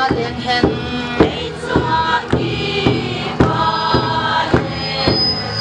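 A group singing together to a steady beat, about two strikes a second, a dance song with many voices.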